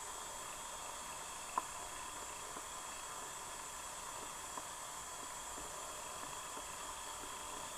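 Steady underwater hiss of stream water picked up through an underwater camera, with a few faint clicks and one sharper click about one and a half seconds in.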